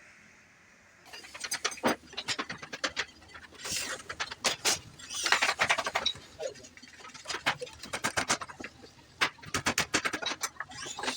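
Irregular series of sharp taps and knocks with a few short scraping strokes between them, starting about a second in.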